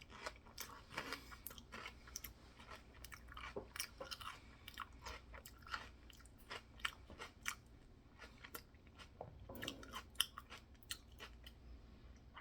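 Open-mouthed chewing of a peanut-butter-and-celery mixture: wet smacks and crunches coming as quick, irregular clicks.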